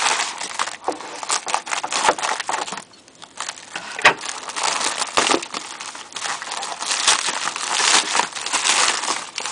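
Plastic bubble-padded mailer crinkling and rustling as hands handle it and pull it open, with one sharp click about four seconds in.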